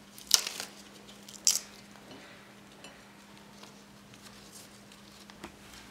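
Crisp lettuce leaves crinkling as they are set down on a ceramic plate: two short crackles, about a third of a second and a second and a half in, and a small tick near the end. A faint low hum runs underneath.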